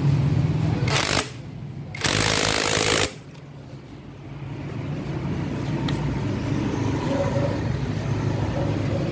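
Cordless impact wrench hammering in two short bursts, the second lasting about a second, as it spins off the flywheel nut of a Yamaha Mio Sporty scooter engine. A steady low hum runs underneath.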